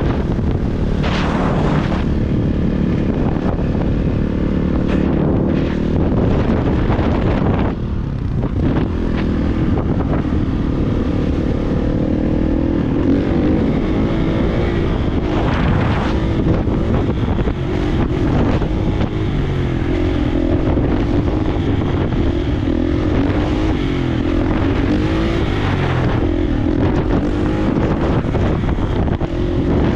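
Kawasaki KX450 dirt bike's single-cylinder four-stroke engine running as it is ridden, its pitch rising and falling with the throttle, with a brief drop about eight seconds in. Wind buffets the microphone.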